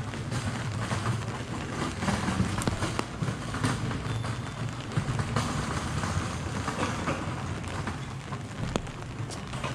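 Steady rain on a city street, with scattered sharp drips and ticks over a low, steady rumble.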